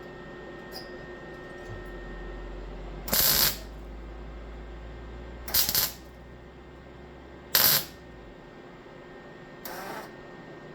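Electric welder laying short tack welds on thin sheet metal at turned-down power: four brief bursts of arc crackle, each about half a second, roughly two seconds apart, over a low hum.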